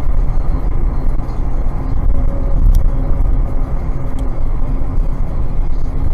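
Engine and road noise of a moving car heard from inside the cabin on a dashcam: a steady low rumble, with two light clicks near the middle.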